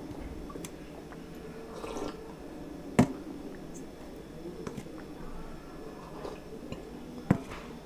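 Fingers squishing and stirring dal in a small steel bowl, with two sharp clinks of steel on steel, about three seconds in and near the end, then dal being sipped from the bowl.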